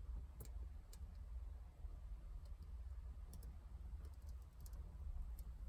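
Faint, scattered light clicks and small handling noises from hands working at a car's rear seat, over a low steady rumble.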